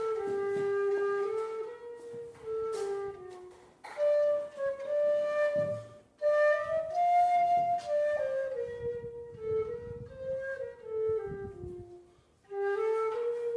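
Background music: a slow solo flute melody, one line at a time, played in several phrases with brief breaks between them.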